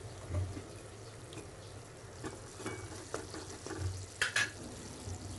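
A perforated metal spoon clicking and scraping against a pan as fried karupatti mittai swirls are lifted out of hot oil and moved into palm jaggery syrup, over a faint sizzle of oil. Scattered short taps, the sharpest about four seconds in.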